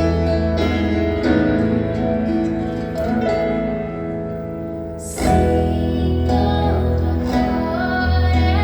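A song with instrumental accompaniment and a female voice singing. The music dips, then comes back in strongly about five seconds in.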